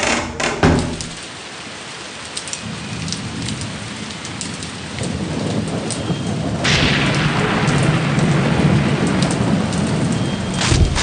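Outdoor crowd applause with a low rumble underneath; the clapping grows suddenly louder about two-thirds of the way in.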